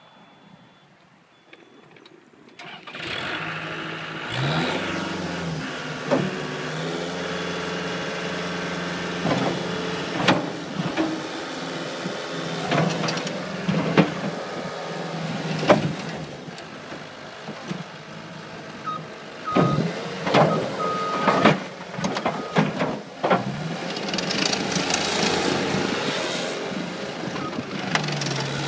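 Diesel engine of a Caterpillar 277B track loader starting about three seconds in, then running and revving, with repeated sharp clanks and knocks from the machine as it works.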